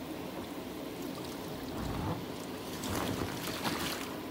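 Water running and spraying steadily on an inflatable water slide and its splash pool, with a couple of soft splashes about two and three seconds in.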